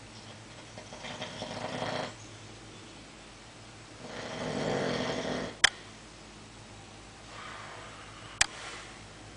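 Snoring: two long, drawn-out snores about three seconds apart, then a fainter breath near the end, with two short sharp clicks in between.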